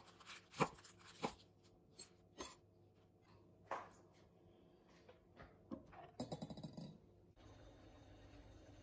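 Kitchen knife chopping silverbeet on a wooden cutting board: a few sharp chops, about two a second at first, then sparser. About seven seconds in, a brief rapid rattle gives way to the steady low hiss of water boiling in a steel pot on a gas stove.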